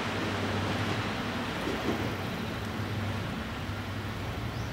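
Diesel railcar engine running with a steady low hum under a broad rushing noise, slowly fading.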